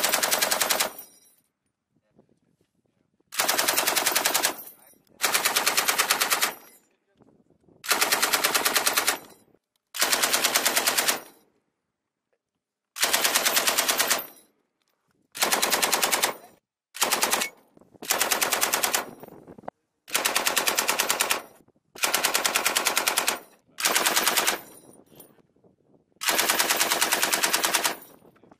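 Belt-fed machine gun firing a series of about a dozen short bursts of rapid automatic fire, each about a second long, with pauses of a second or two between them. One burst near the middle is much shorter.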